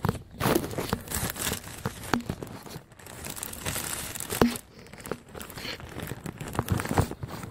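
Rustling, crinkling handling noise with several sharp metallic clicks and knocks, the loudest about halfway through, as a jointed oil filter wrench is worked into place around a car's oil filter by gloved hands.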